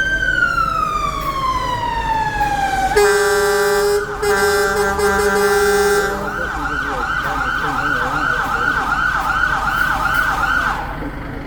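Fire engine siren run through its tones: a slow wail falling in pitch, then a steady harsh horn tone for about three seconds with a brief break, then a fast yelp of about three sweeps a second that stops near the end.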